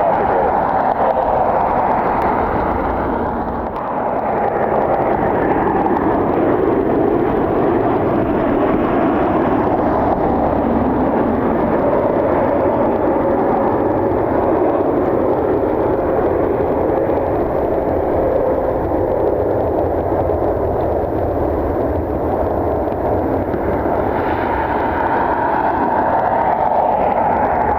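Jet airliner engines running loud and continuous, a dense roar with faint whining tones that glide in pitch near the start and again near the end.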